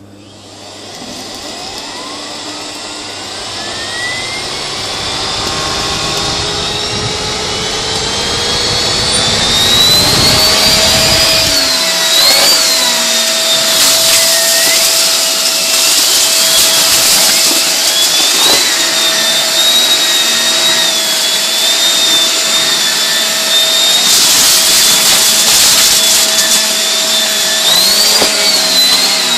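Miele S5210 canister vacuum cleaner switched on, its motor slowly spinning up with a rising whine over about ten seconds before settling into a loud steady run. It then sucks shredded paper off a carpet, the whine wavering as the floor tool moves, with a few short surges of noise as paper is drawn in.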